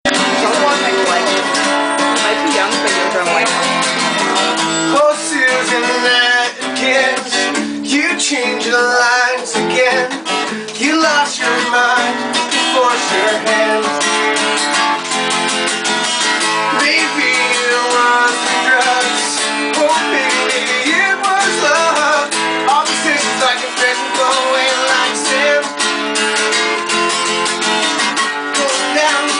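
Steel-string acoustic guitar strummed in steady chords.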